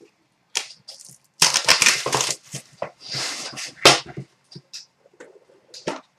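Small white cardboard card box being opened by hand. Cardboard scrapes and crinkles in several irregular bursts, with scattered clicks, as the box is worked open and the lid is pulled off.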